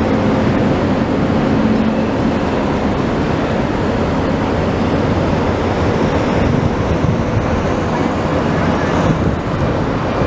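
Steady wind buffeting the microphone, with a low mechanical hum underneath that fades about two seconds in.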